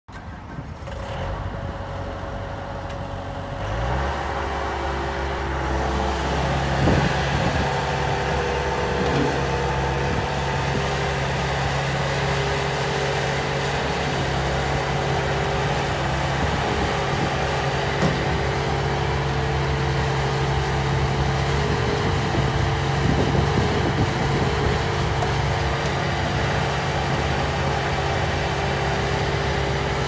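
Bobcat S220 skid-steer loader's diesel engine running as the machine drives and maneuvers. The engine note steps up to a higher, steady pitch about four seconds in, with a few short knocks.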